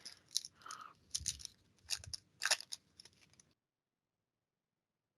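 Crisp rustling and clicking of trading cards being handled and flipped through, stopping about three and a half seconds in.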